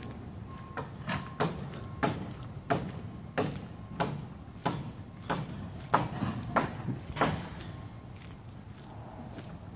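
Footsteps of a person walking down a slope on interlocking concrete paving stones, about one and a half steps a second, stopping about seven seconds in.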